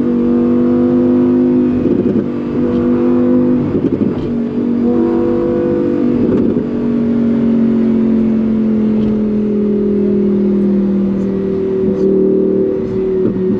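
Lamborghini Huracán Performante's naturally aspirated V10 pulling hard in Corsa mode, loud and continuous. Its note is broken by quick gear changes about every two seconds in the first half, then holds at nearly one pitch for several seconds before more shifts near the end.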